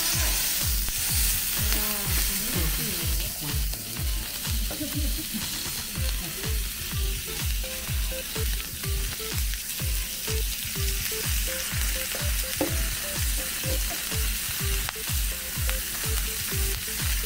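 Hamburg steaks sizzling on a hot iron plate, a steady spitting hiss, over background music with a steady low beat.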